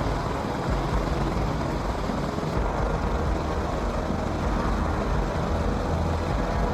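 Steady rushing rumble of aircraft engine noise, with no clear pitch and no breaks.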